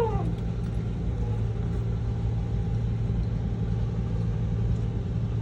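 A motor running steadily in the background: an even, low hum that does not change.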